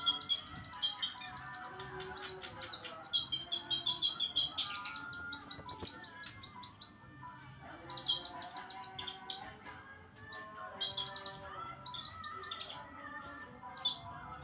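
Caged kolibri ninja (a sunbird) singing a fast, varied song of rapid high trills and sharp chirps, its repertoire dominated by mimicked srindit (hanging parrot) calls. The loudest part is a burst of very high notes about five seconds in.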